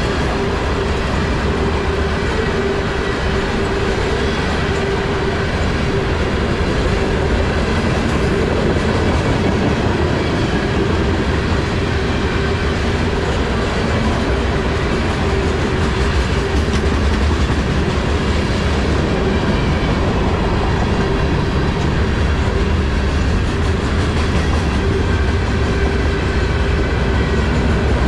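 CSX manifest freight train's covered hopper cars rolling past close by: a steady rumble of steel wheels on the rails, with a steady tone held underneath.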